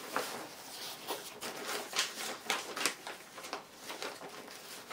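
A canvas tool bag being unzipped and handled: an irregular run of sharp clicks and short rustles.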